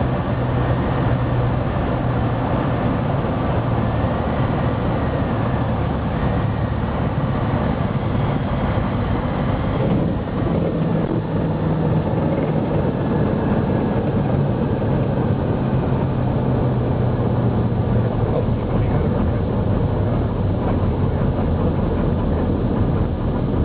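Evektor Eurostar light aircraft's engine running steadily over wind noise on the landing approach, its hum changing pitch about ten seconds in.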